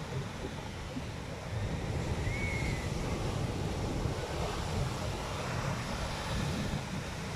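Sea surf washing steadily, with wind buffeting the microphone as a low rumble.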